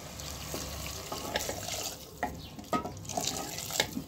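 Hot water poured from a steel pot into a pressure cooker of frying chicken and vegetables: a steady splashing pour, then several sharp knocks in the second half.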